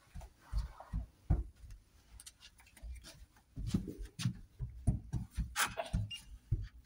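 Irregular soft thumps of footsteps and a handheld phone being moved, closer together in the second half, with a few sharp clicks about five and a half seconds in.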